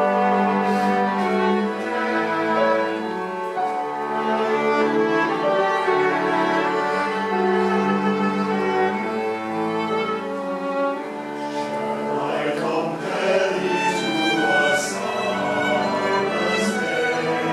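Youth string ensemble of violins and cellos playing slow, sustained chords that change every second or so.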